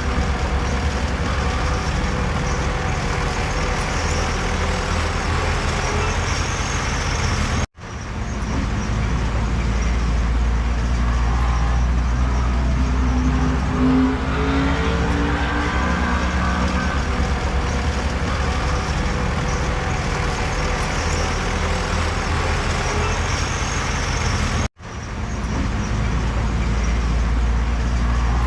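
Heavy diesel earthmoving machinery, a bulldozer working with dump trucks, running hard with its engine note shifting up and down in the middle. The sound cuts out abruptly twice, about 8 and 25 seconds in, and fades back in each time.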